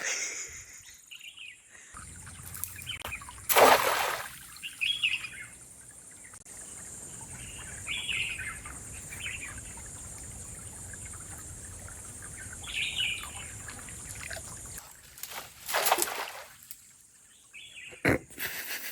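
Birds chirping here and there over a steady outdoor background hiss, with two loud, short bursts of noise, one about three and a half seconds in and one near sixteen seconds.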